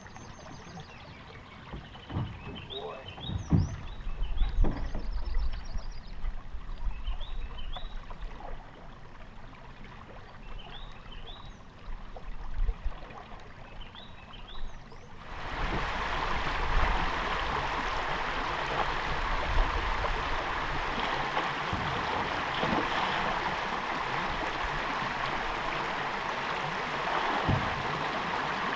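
Hollow knocks and thumps of gear and a paddle against a canoe hull, with small birds chirping in short repeated phrases. About halfway through it switches to the steady rush of shallow river water running over rocks.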